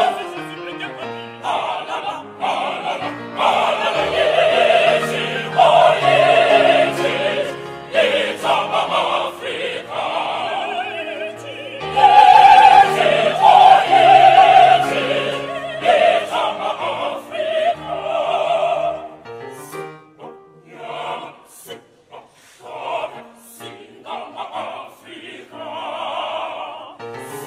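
Mixed choir of men's and women's voices singing in harmony, at its loudest about twelve seconds in and breaking into short, separated phrases in the last third.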